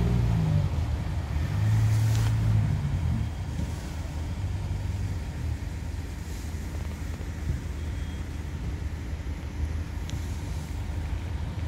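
Low, steady rumble of a motor vehicle engine or road traffic, louder for the first three seconds or so.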